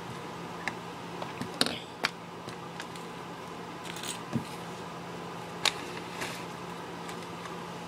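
Fingerboard parts and packaging being handled: scattered light clicks and taps, about half a dozen, over a steady low hum.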